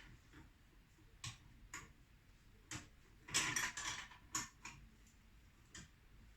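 Irregular metallic clicks and clinks of a 13 mm spanner working the nuts of a spring compressor as a motorcycle rear shock's spring is compressed, with a denser run of clicks around the middle.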